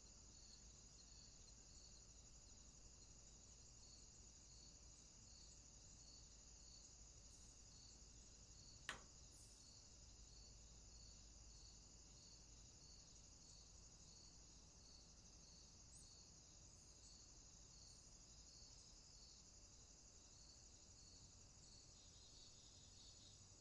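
Faint outdoor insect chorus of crickets: a steady high trill with a regular, evenly spaced chirp repeating about once or twice a second. A single sharp click about nine seconds in.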